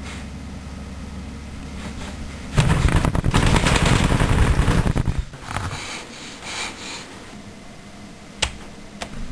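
A loud, rough crackling noise lasts about two and a half seconds. Near the end comes a single sharp click of a computer keyboard key being pressed.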